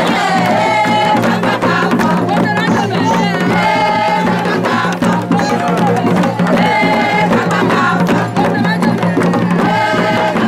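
Traditional procession music: a crowd singing over drums and clattering percussion, with a side-blown horn sounding wavering notes above them.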